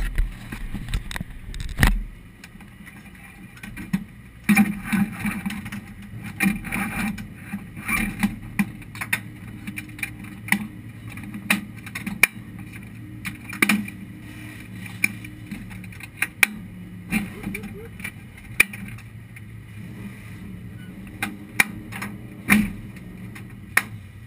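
Handling knocks as a hand adjusts a GoPro mounted on a race car's front suspension, then a steady low hum with scattered sharp clicks and knocks and faint voices.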